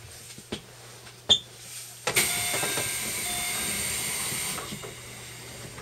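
Compressed air hissing out of a JR Central 373 series train's air system, starting suddenly and lasting about two and a half seconds, with a sharp click shortly before it.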